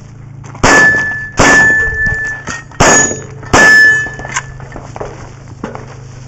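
Four Glock pistol shots in two quick pairs, each shot followed by the ringing clang of a hit steel target.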